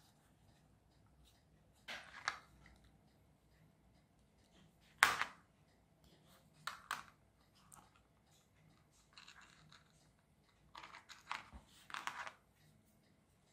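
Thin plastic kit parts being snapped out of their sprue sheets and handled: scattered snaps and rustles, the sharpest crack about five seconds in.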